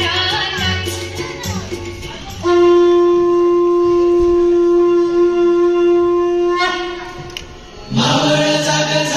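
Dance-song playback with singing, which gives way after about two seconds to a wind instrument holding one long, steady note for about four seconds. The song's music comes back in near the end.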